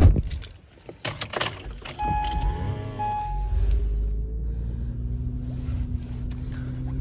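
Car door thumps shut, a few clicks follow, then about two seconds in the car's engine is started, with a brief steady tone over it, and settles into a steady idle hum.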